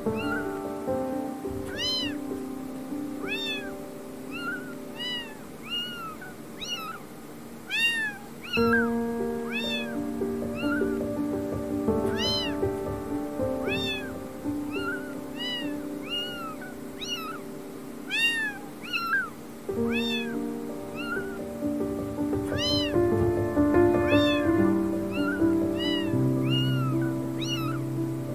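Newborn kittens, a day old, mewing over and over in short high cries that rise and fall in pitch, about one a second: the thin distress cries of kittens calling for their mother. Background music with held notes plays underneath.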